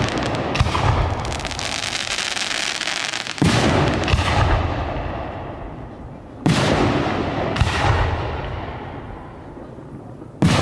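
Professional aerial firework shells bursting: a sharp bang about every three seconds, each followed closely by a smaller second report and a long fading echo.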